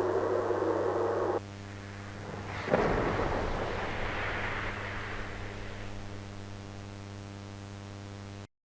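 A steady electrical hum, then a sudden explosion about three seconds in whose rumble fades over several seconds before the audio cuts off abruptly to dead silence: a sound effect standing for an asteroid impact. Before that, a hiss of noise stops about a second and a half in.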